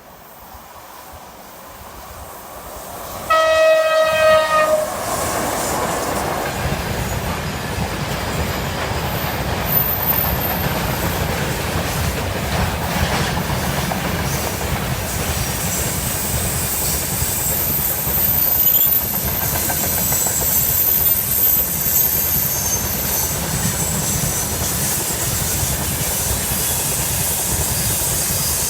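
Freight train approaching and passing. The locomotive sounds its horn once, a blast of about a second and a half that drops slightly in pitch, about three seconds in. The wagons then rumble past with a steady clatter of wheels over the rail joints.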